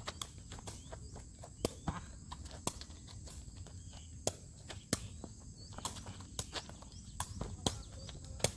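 A takraw ball being kicked back and forth, a string of sharp hollow knocks at uneven intervals with the loudest about once a second, mixed with shoes stepping on asphalt. A steady high insect buzz runs underneath.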